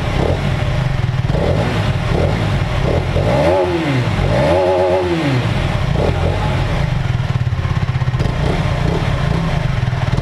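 Aprilia RS4 125's single-cylinder four-stroke engine running through its stock exhaust, blipped twice in quick succession about three and a half and five seconds in, rising and falling in pitch, then settling back to steady running.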